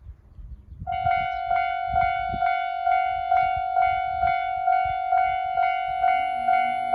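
Railway level-crossing alarm starting up about a second in and ringing at an even rhythm of about two dings a second, warning that a train is approaching. A second, lower tone joins near the end.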